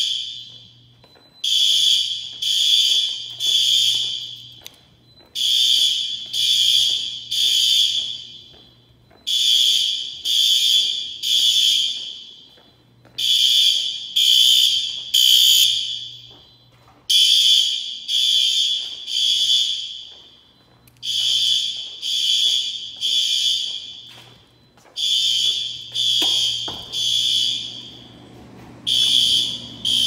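System Sensor SpectrAlert Advance fire alarm horn strobes sounding the temporal-three evacuation pattern: three high-pitched horn blasts, a pause, then three more, repeating about every four seconds.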